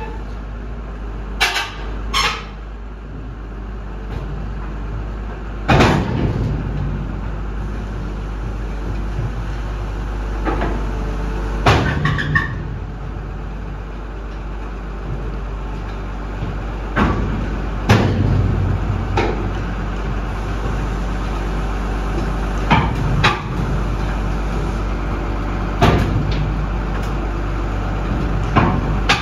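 Crawler rotary drilling rig's diesel engine running steadily as the machine moves slowly on a steel trailer deck, with sharp metallic clanks every few seconds.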